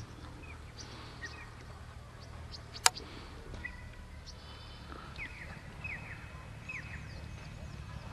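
Birds chirping and calling: many short chirps, and in the second half a run of quick down-slurred calls, over a low steady rumble. A single sharp click about three seconds in is the loudest sound.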